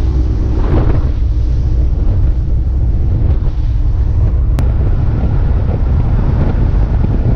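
Bass boat running at speed across open water: steady, heavy wind noise buffeting the microphone over the low rumble of the outboard motor and hull.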